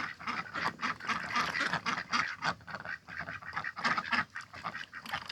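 Domestic ducks quacking, many short calls in quick succession.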